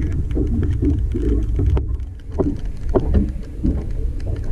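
Steady low rumble of wind and rain on the microphone in an open aluminum SeaArk boat, with scattered ticks and a few heavier knocks of footsteps on the boat's deck, the strongest about two and a half and three seconds in.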